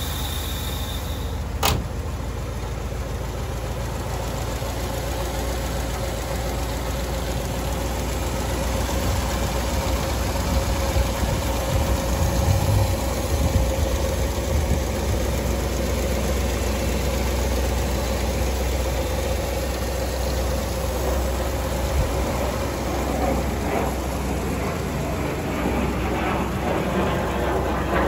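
Ford 352 cubic-inch (5.8 L) V8 of a 1960 Thunderbird idling steadily.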